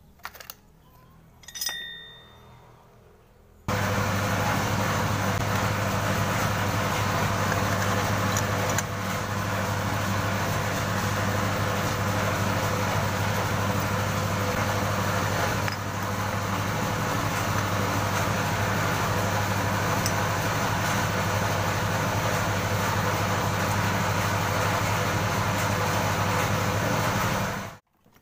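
Honda Scoopy FI's single-cylinder engine running with the CVT cover off, a loud, steady mechanical running sound with a strong low hum. It starts abruptly a few seconds in and cuts off abruptly near the end.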